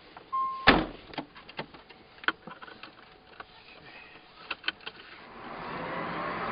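Inside a Tesla Roadster: a short electronic chime, a loud click just after it, and several lighter clicks as the occupants settle in. Near the end a rising hum of road and motor noise comes in as the car pulls away.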